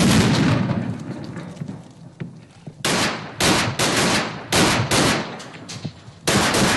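Gunfire: a loud report at the start that rings away over a couple of seconds, then a quick string of about nine single shots, each echoing briefly.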